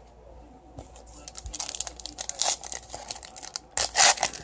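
Foil trading-card pack crinkling in the hands and being torn open. It starts about a second and a half in, with the loudest rip near the end.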